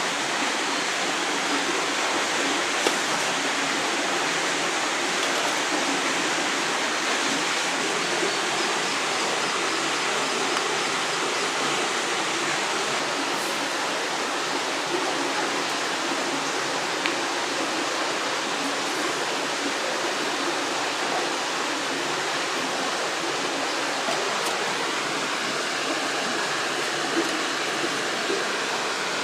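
River water rushing steadily over rocks, an even, unbroken noise with a few faint small ticks over it.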